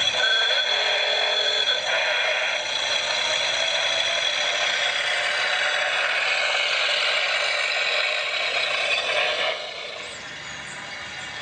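Recorded engine sound effect played from an MP3 player through the small onboard loudspeaker of a model Ford railmotor: a thin, rattling engine sound with no bass. It becomes quieter about nine and a half seconds in.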